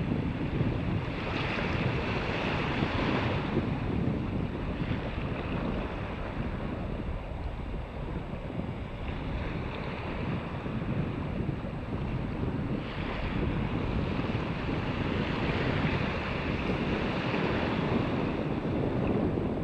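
Wind buffeting the microphone over small waves washing on a sandy shore, with surges of surf hiss about a second in and again from about thirteen seconds.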